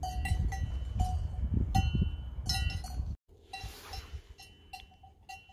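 Small bells on grazing Valais Blacknose sheep clinking and tinkling irregularly as the animals move their heads. A heavy low rumble sits under the first three seconds and stops abruptly, leaving the bells clearer and quieter.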